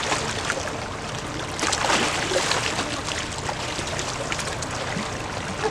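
Lake water splashing and lapping, with a louder splash about two seconds in.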